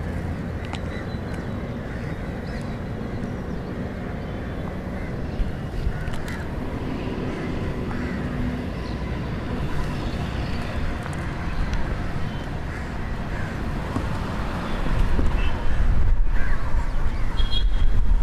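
Outdoor city ambience: a steady background hum of traffic with birds calling now and then. About fifteen seconds in, a louder low rumble comes in.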